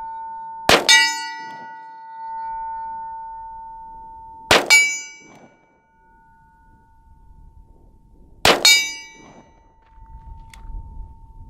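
Three shots from a .45 Colt Ruger Vaquero single-action revolver, about four seconds apart. Each is followed at once by a metallic clang that rings on and slowly dies away, the sound of a steel target being hit.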